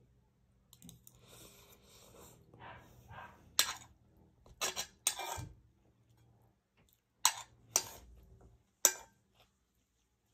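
Cutlery clinking and scraping against a plate while eating. There is soft scraping at first, then about six sharp, ringing clinks in the second half.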